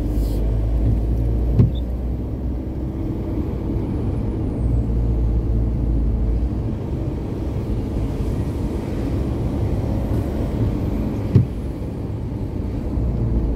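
Car on the move: a steady low rumble of engine and road, with two short sharp knocks, one about a second and a half in and one near the end.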